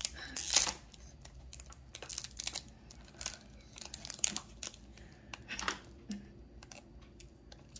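Foil Pokémon booster pack wrapper crinkling and tearing in short irregular bursts as it is worked open by hand with some difficulty. The loudest crackle comes about half a second in.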